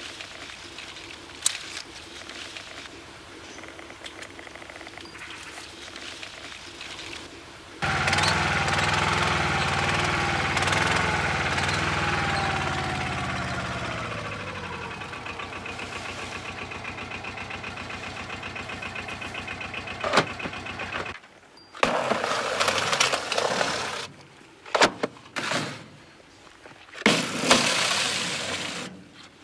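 A farm vehicle's engine comes in loudly about eight seconds in and runs, its pitch slowly dropping over the following seconds. Later the sound breaks into short stretches with several sharp knocks.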